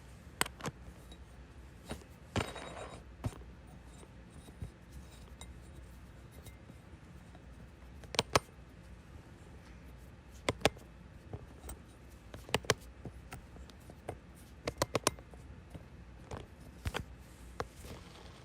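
Irregular sharp clicks and taps, some single and some in quick clusters of two or three, with a short scraping swish about two and a half seconds in.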